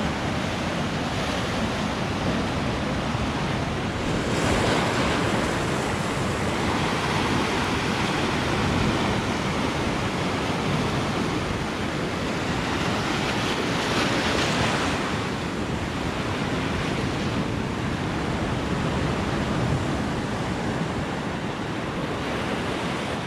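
Ocean surf breaking and washing over shoreline rocks, a continuous rush of water that swells louder about four to six seconds in and again around thirteen to fifteen seconds in.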